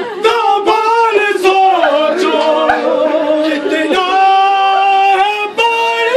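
Mourners chanting a noha, a Muharram lament, in long held, wavering notes, with a few sharp slaps of matam chest-beating.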